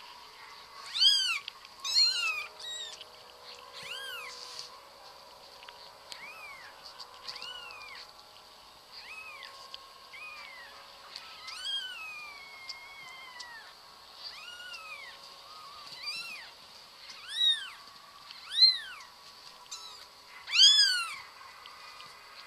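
A cat meowing over and over: about fifteen short meows that each rise and fall in pitch, a handful of them loud, with one longer meow about twelve seconds in that trails downward.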